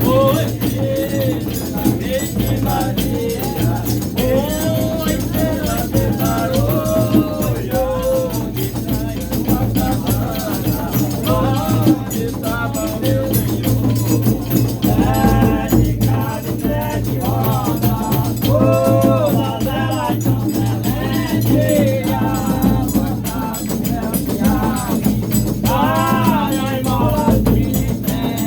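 Reisado folk music: singing over shaken rattle percussion and a steady low accompaniment, with the sung phrases coming and going.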